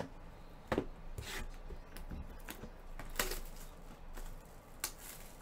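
A few light, scattered clicks and knocks from objects being handled, over a steady low hum.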